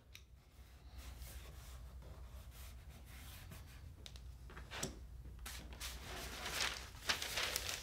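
Hands rubbing and pressing a veneer marquetry piece down onto a glued plywood board: faint rubbing with a few light scrapes and taps, busier near the end, over a low steady hum.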